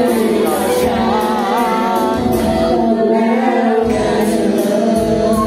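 A girl singing into a microphone over a backing music track, her voice wavering in pitch over a steady accompaniment.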